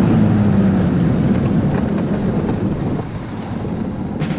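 Engine of a motorized snow tug (motosobaka) running steadily under way across the ice, with wind buffeting the microphone. Drum beats of background music come in near the end.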